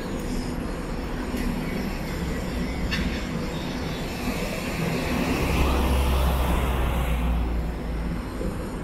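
Street traffic noise with a passing vehicle's low engine rumble, which swells a little past the middle and then fades.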